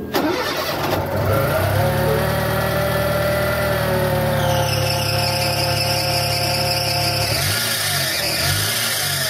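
Fiat Palio 1.0 Fiasa engine running with a steady high-pitched squeal from its alternator (auxiliary) belt, a sign that the belt needs replacing. The engine note changes about seven seconds in.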